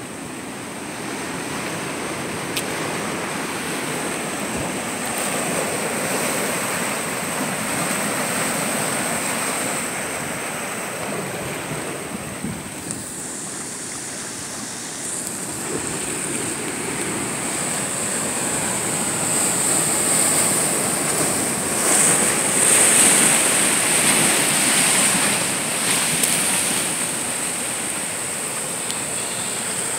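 Ocean surf washing over and around shoreline rocks: a steady rushing that swells and ebbs, loudest about two-thirds of the way through.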